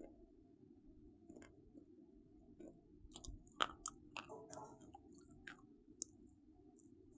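Crisp crunches and clicks from something crunchy being crushed, a few scattered at first, then a busier cluster of crackles about three to six seconds in, over a faint low hum.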